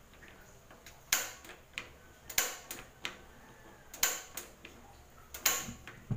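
Rinnai gas stove's ignition knob being turned and its igniter clicking: four loud clicks about a second and a half apart, with fainter ticks between, as the burner is repeatedly lit. The burner catches near the end.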